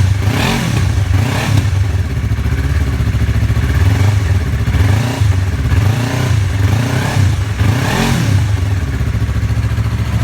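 2021 Yamaha R3's inline-twin engine running on a cold start, with the throttle blipped several times so the revs rise and fall.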